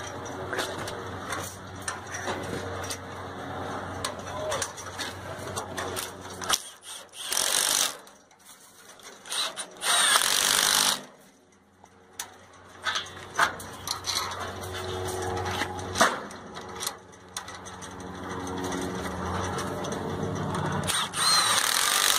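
Cordless drill with a socket driving 5/16 flange nuts onto the carriage bolts that fasten chain-link fence to a corner post. It runs in three short bursts, about 7 and 10 seconds in and again near the end, with clicks and knocks of handling in between.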